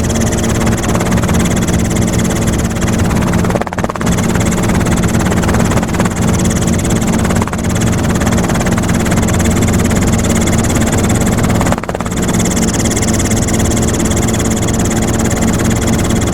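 Helicopter engine and rotor drone, heard from on board: a loud, steady hum with a constant whine and noise over it, dipping briefly twice.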